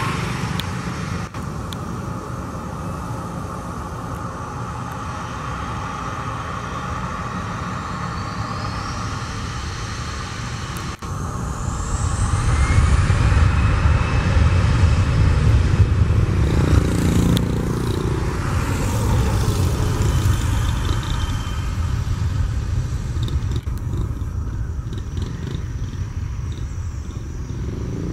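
Airbus A320's twin jet engines spooling up for takeoff. A rising whine builds about ten seconds in, then a louder, steady rumble of takeoff thrust as the airliner accelerates down the runway.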